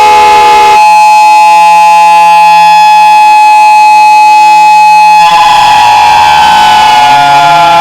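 Emergency Alert System-style alarm, very loud: layered siren tones sliding up and down, switching about a second in to a steady held chord of tones, then the sliding siren wails return after about four more seconds.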